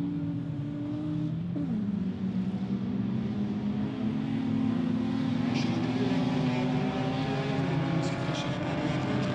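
Engines of several folk race cars running hard on a dirt autocross track. The engine pitch drops sharply about a second and a half in and then climbs again. A few short sharp ticks come in the second half.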